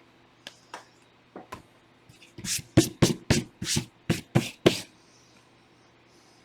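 Trading cards being handled on a table: a few light clicks, then a quick run of about nine sharp taps and swishes lasting a couple of seconds, as cards are set down and squared.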